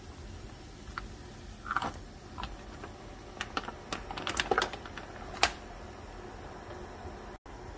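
Crinkling of a plastic bag and clicking of mussel shells as mussels are tipped out of the bag into a simmering stew: a run of sharp irregular clicks over a few seconds, the loudest near the end, over a faint steady hiss.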